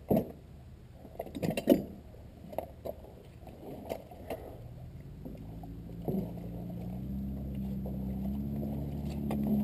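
Footsteps squelching and sucking in deep, soft tidal mud, with wet splats and knocks. From about halfway through, a low steady motor drone with several tones slowly grows louder.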